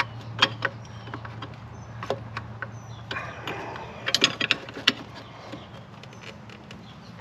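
Irregular metallic clicks and taps of a wrench working on the engine coolant temperature sensor of a Fox Body Mustang engine, coming in small clusters, over a steady low hum.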